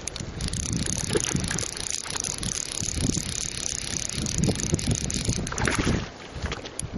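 Fly reel's click-and-pawl drag buzzing steadily as a hooked trout takes line, stopping about five and a half seconds in, then a splash as the trout thrashes at the surface. Wind rumbles on the microphone.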